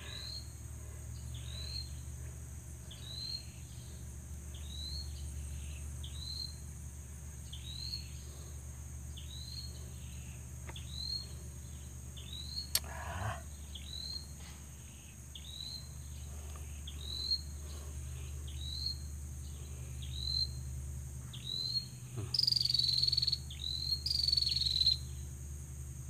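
Outdoor animal chorus: a short high chirp repeated about once a second over a steady low hum, with a single sharp tap about halfway. Near the end a louder, shrill insect buzz sets in.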